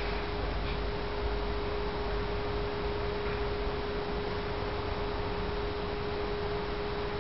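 Public-address horn loudspeakers sounding one steady, unchanging mid-pitched tone over a background hiss.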